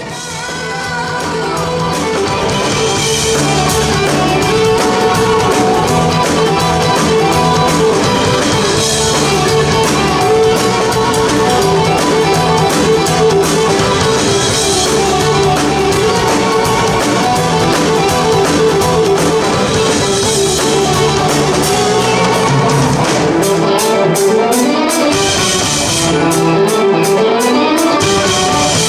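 Live rock band music with drum kit and guitar, growing louder over the first couple of seconds and then holding steady.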